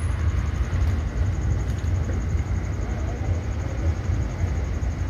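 Steady, unbroken low rumbling background noise with a few faint ticks and no distinct event.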